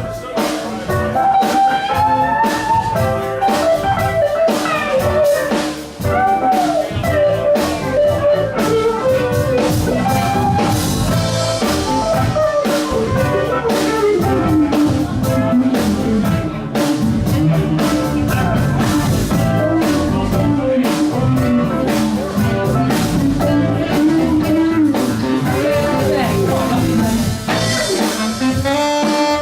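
Live blues band playing an instrumental break: a lead electric guitar solo with bending notes over drums.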